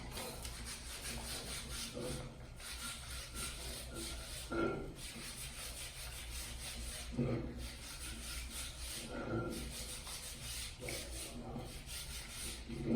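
Scrubbing: steady rubbing against a surface, with a louder stroke or knock every two to three seconds.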